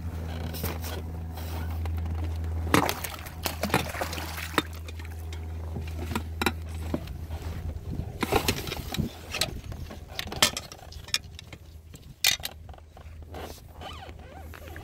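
Hooked pike thrashing at the water's surface on the line, making a series of sharp, irregular splashes. A steady low hum runs underneath and stops about halfway through.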